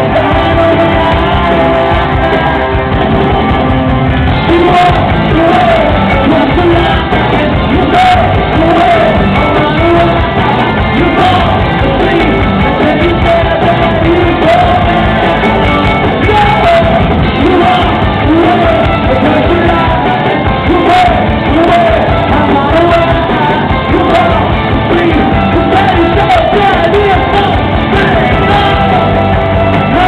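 Live rock band playing a song, with a lead singer over electric guitars, bass and drums, loud and steady throughout.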